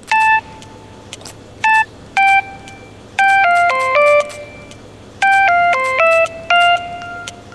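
Smartphone ringtone melody of clear, bell-like notes: a few separate notes, then the same quick phrase of falling and rising notes played twice, ending on a held note.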